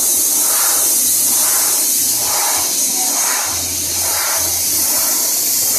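Compressed air rushing out of an open scuba tank valve: a loud, steady high hiss that wavers about twice a second.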